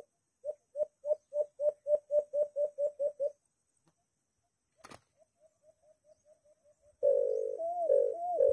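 White-eared brown dove calling: a run of about a dozen short hollow notes, then a sharp click and a fainter run of the same notes. About seven seconds in, a louder continuous rising-and-falling sound starts.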